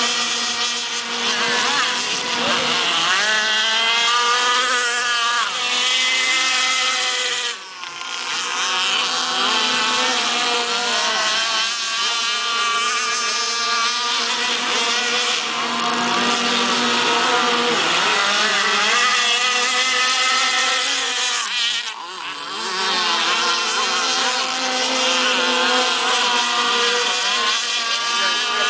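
Small two-stroke gas engines of RC speedboats running at high revs, the pitch rising and falling as the boats race past and turn. The sound dips briefly twice, about 8 and 22 seconds in.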